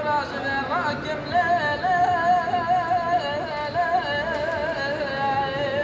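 A dengbêj singing a Kurdish kilam unaccompanied: one man's voice holding long, wavering notes with quick ornamental turns, swooping up about a second in.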